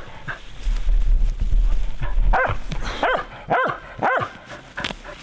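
Spitz-type hunting dog barking at a shot capercaillie: a run of four sharp barks about half a second apart in the second half, after a low rumble in the first two seconds.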